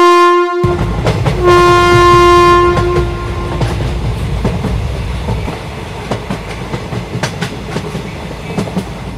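Train horn sounding two long blasts, the second trailing off about four seconds in, over the rumble and wheel clatter of a passenger train pulling into a station. The rumble grows quieter toward the end as the train slows.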